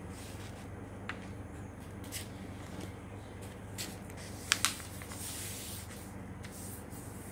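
A sheet of A4 paper being folded and pressed flat by hand on a board: a few sharp crackles and taps, the loudest two in quick succession about halfway through, then a brief rustling hiss as the fold is smoothed, over a steady low hum.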